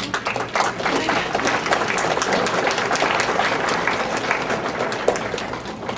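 A roomful of people clapping and applauding, thinning out near the end.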